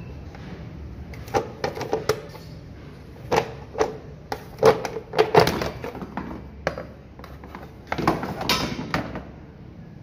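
Plastic engine cover of a Toyota Corolla being unbolted by hand and lifted off the engine: a series of irregular knocks, clatters and scrapes of hard plastic and metal, busiest in the middle and again near the end.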